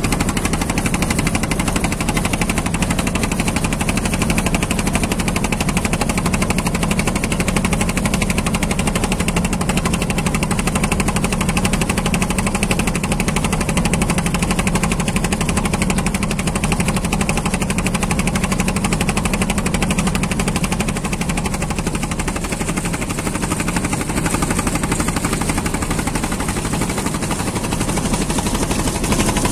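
Inboard engine of a wooden motor boat running steadily under way with a rapid, even pulse, over the rush of water along the hull.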